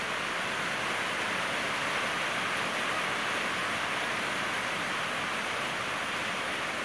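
Rain falling on a corrugated steel carport roof: a steady, even hiss.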